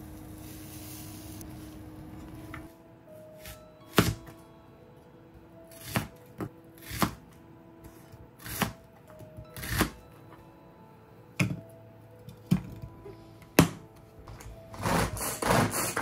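Kitchen knife cutting through an onion on a plastic cutting board: about nine separate sharp chops roughly a second apart, over soft background music. Before the chopping starts, a steady sizzling hiss from the omelette pan.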